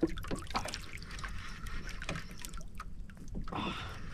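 Sea water lapping and slapping irregularly against the hull and outriggers of a small outrigger boat.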